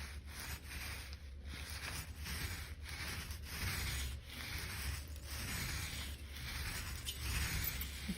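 Scratchy rubbing noise, coming in uneven strokes with short breaks between them.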